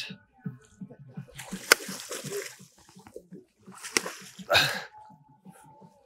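Water splashing and sloshing against the side of a small boat as a large hooked fish is netted at the surface, with two sharp knocks.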